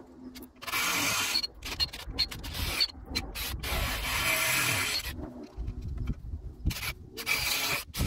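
Cordless drill drilling into a garden spade's socket and its new wooden handle, in several runs of one to two seconds with short pauses between.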